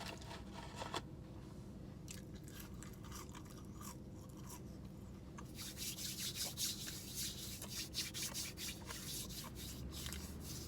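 Faint rustling and rubbing as a person handles things, thickening for a few seconds past the middle, with a few light clicks over a low steady hum.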